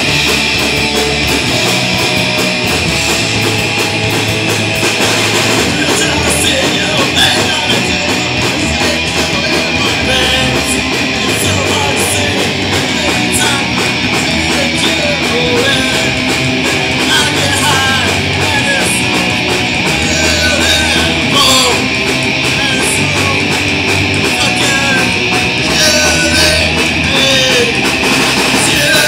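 Punk rock band playing live: electric guitar and drum kit, loud and continuous.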